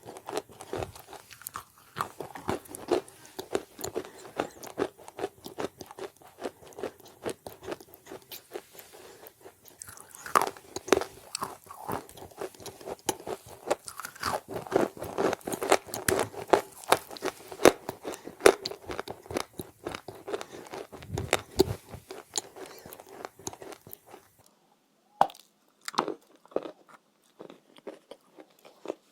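A person biting and chewing chalk close to the microphone: dense, rapid crunching that breaks off briefly near the end, then resumes as scattered crunches.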